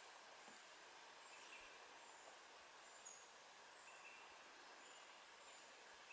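Near silence: faint forest ambience with thin, high bird chirps repeating about once or twice a second, and a few lower chirps in between.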